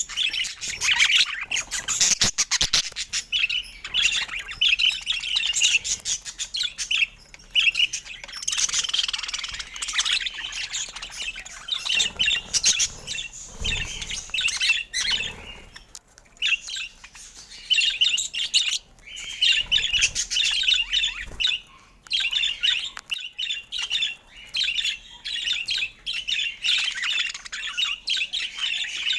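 Budgerigar chattering: a fast, continuous run of chirps, warbles and squawks, broken by short pauses.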